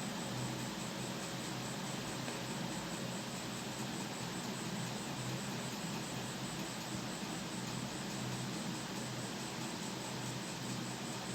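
Steady background hiss with a faint low hum underneath, unchanging throughout; no distinct events.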